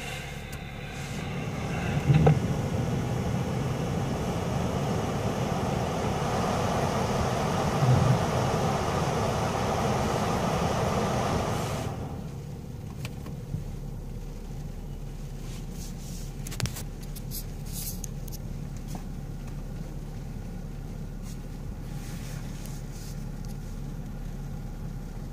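Cabin noise of a BMW X6 creeping over a muddy off-road track: a steady rumble and hiss with a couple of thumps. The noise cuts off suddenly about twelve seconds in, leaving a quieter low hum.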